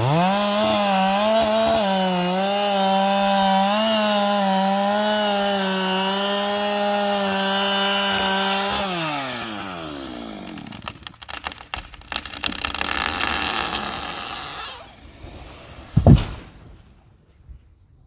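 Two-stroke chainsaw revving up and cutting at full throttle through a redwood trunk, its pitch wavering under load, then easing off to idle about nine seconds in. Wood cracks and there is a rushing noise as the tree goes over, then a heavy thud about sixteen seconds in as the trunk hits the ground.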